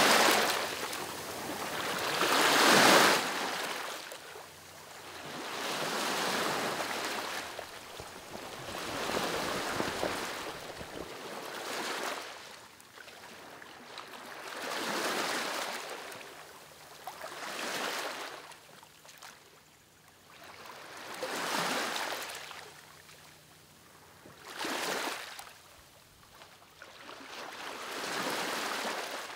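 Small sea waves breaking and washing up a sandy beach, a swell of surf about every three seconds.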